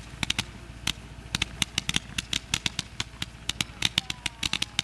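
Fireworks going off: a rapid, irregular series of sharp pops and bangs, several a second, in clusters.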